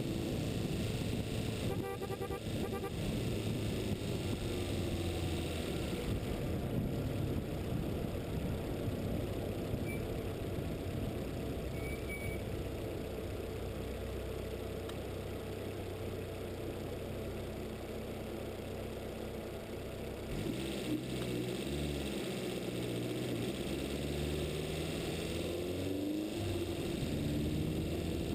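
Wind rushing over the microphone and the steady drone of a following motor vehicle's engine at road speed. About two-thirds of the way through, the engine note rises and falls as it changes speed.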